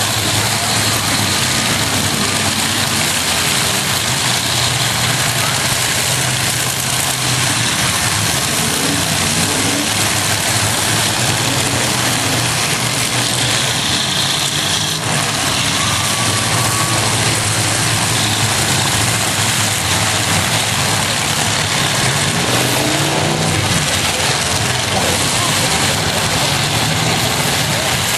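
Demolition derby trucks' engines running and revving together in a dense, steady din, with a rise and fall in engine pitch a little past two-thirds of the way through.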